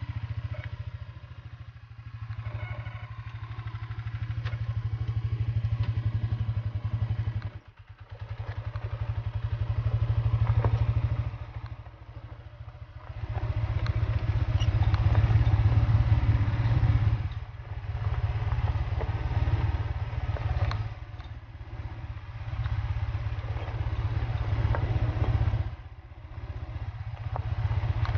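A vehicle's engine running as it travels along a road, swelling and easing off several times, with short lulls about a quarter of the way in, a little before halfway, around the middle and near the end.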